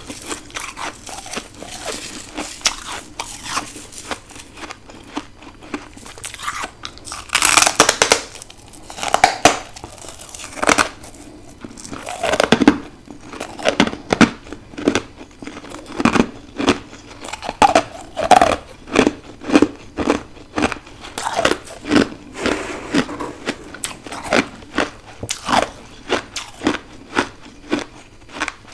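Freezer frost being bitten and chewed, crisp crunching throughout. A burst of loud crunches comes about eight seconds in, then steady chewing crunches about two a second.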